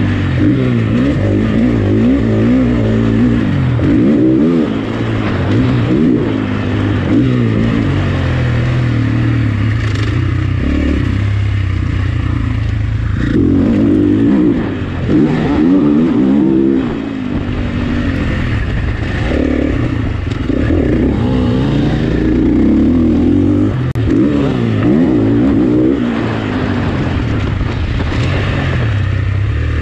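Dirt bike engine ridden hard on a dirt track, heard from on board: it revs up and drops back over and over as the rider opens and closes the throttle and shifts gears.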